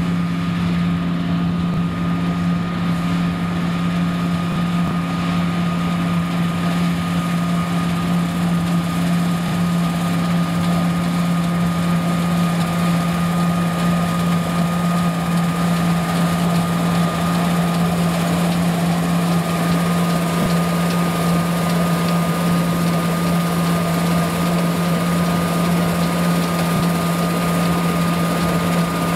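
John Deere combine harvester running while cutting triticale: a steady machine drone with a constant low hum and a thin high whine, growing fuller and louder as it comes closer.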